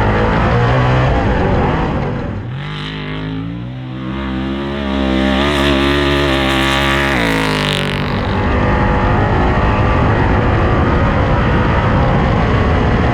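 Race car engine running hard. Its note climbs steadily from a couple of seconds in, then drops back about two-thirds of the way through, under a constant rush of noise.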